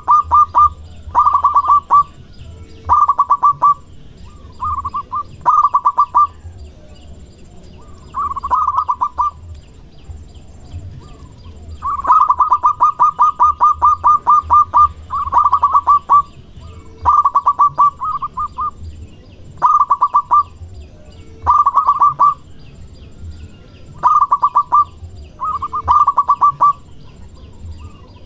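Local zebra dove (perkutut) singing loudly: repeated bursts of rapid staccato cooing notes, each about a second long with short pauses between, and one longer run of notes about halfway through.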